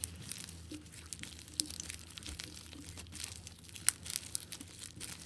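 Popcorn slime with styrofoam beads squeezed and kneaded by hand, giving irregular crackling clicks and crunches.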